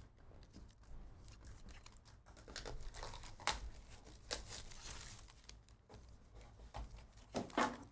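Foil trading-card pack wrappers being torn open and crinkled, with scattered rustling as the cards are handled.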